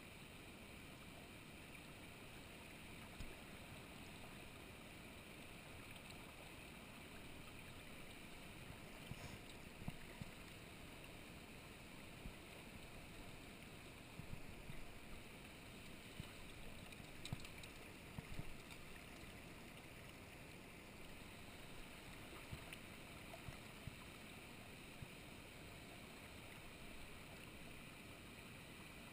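Faint, steady rush of a river flowing over rocks, with a few brief knocks partway through.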